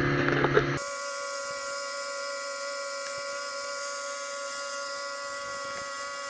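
Steady machine hum holding several fixed pitches, unchanged throughout, after a short stretch of a lower hum with a few light clicks.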